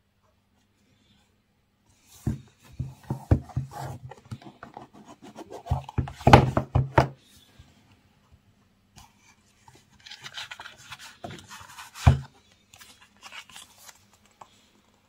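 Cardboard watch box being handled: a run of knocks, taps and rubbing as the lid is worked off. After a pause, paper cards slide and rub against the box, with one sharp knock about twelve seconds in.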